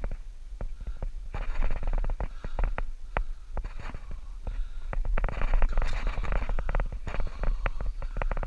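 Rumbling wind and handling noise on a body-worn action camera's microphone, with many irregular clicks and knocks, as the angler moves and handles the rod.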